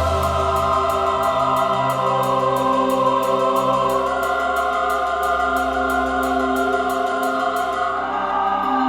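Ambient drone music from a sound installation: many sustained, layered tones with a fast, regular high ticking pulse over them. The ticking stops about eight seconds in, as the chord shifts.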